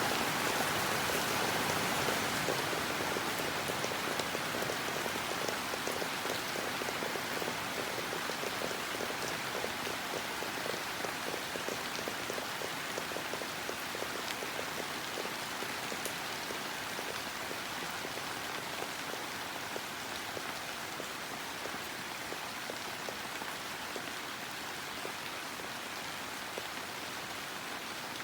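Heavy rain pattering on a plastic greenhouse roof, a dense steady patter of drops that slowly gets quieter.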